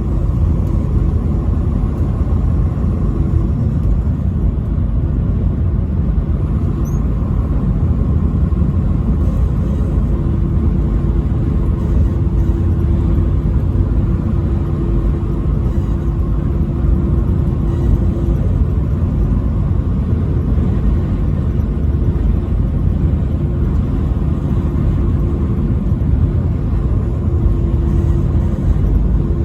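Steady low rumble of a truck driving on the highway: engine drone and road noise, unchanging throughout.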